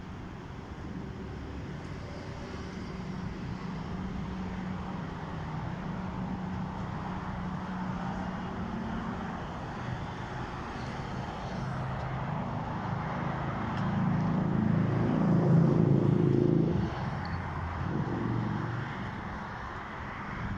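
Motor vehicle engine running near the microphone: a steady hum that grows louder about two-thirds of the way through, then drops away suddenly.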